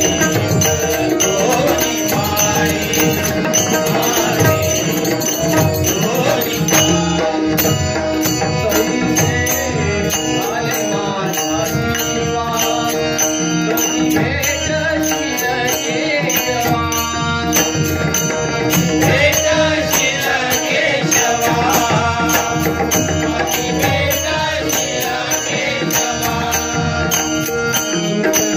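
Live Marathi devotional bhajan music: a male voice singing over a steady drone, with hand drums and small cymbals keeping a constant rhythm. It is the closing Bhairavi of a bhajan session.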